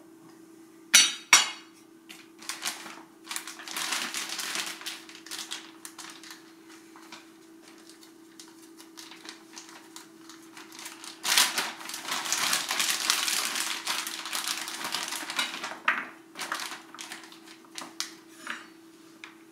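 Kitchen prep sounds. About a second in, a steel cleaver knocks twice on an enameled cast iron skillet as chopped sausage is scraped into it. In the middle a plastic bag crinkles for a few seconds, and near the end the cleaver chops carrots on a wooden cutting board. A steady low hum runs underneath.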